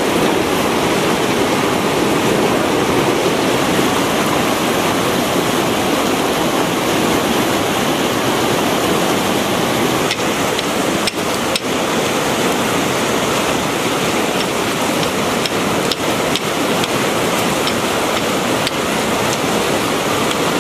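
Fast mountain river rushing over rocks, a loud, steady rush of white water, with a few brief dips in the sound about halfway through.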